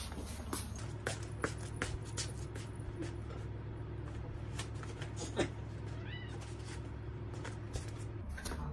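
A domestic cat giving short meows, with one high, rising meow about six seconds in, over a steady low hum and the clicks of footsteps in slippers on a hard floor.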